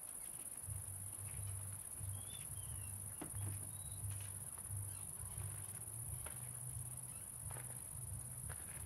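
Crickets chirping: a steady high-pitched trill that holds throughout, over a low rumble.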